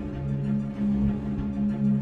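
Background music with low, long-held tones.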